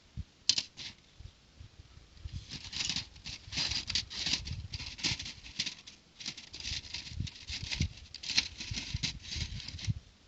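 Crackly plastic rustling and small clicks of plastic toy bricks and their bags being handled, beginning with two sharp clicks and then a dense, continuous crinkling.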